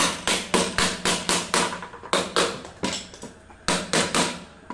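Hammer blows on the metal end cover of an e-rickshaw hub motor, knocking the cover down onto the housing to seat it tight. The blows come in quick runs of about four a second, with two short pauses.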